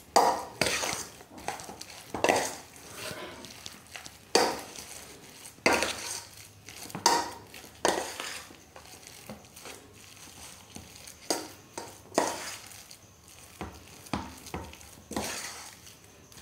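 Steel spoon scraping and knocking against a stainless steel bowl while mashed potato and spices are stirred together, in repeated uneven strokes about one a second.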